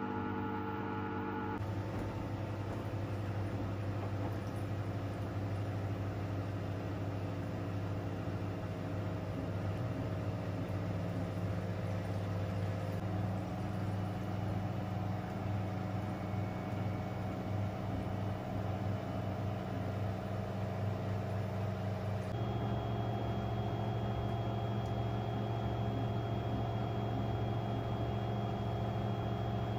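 Samsung AI washer dryer's drum motor running steadily at distribution speed with the laundry pressed against the drum, the machine working to spread an unbalanced load. The hum shifts pitch in steps a few times, rising in the last third, where a thin high whine joins it.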